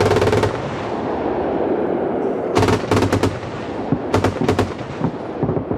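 Twin 35 mm autocannons of a Gepard 1A2 anti-aircraft tank firing short bursts of rapid shots. One burst ends about half a second in, another comes about two and a half seconds in, a third comes about a second later, and a single shot sounds near the end, with a low rumble between them.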